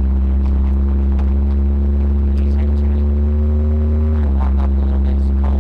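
A 1977 Ford Ranchero's 351 Windsor V8 heard from inside the cab while driving: a steady low drone whose pitch creeps slowly upward, then dips slightly about four seconds in.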